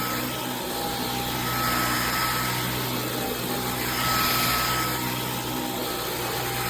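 Dyson V15 Detect Plus cordless stick vacuum running on a rug: a steady motor drone and airflow noise. A high whine fades out and returns several times, and the loudness swells slightly as the cleaner head is worked back and forth.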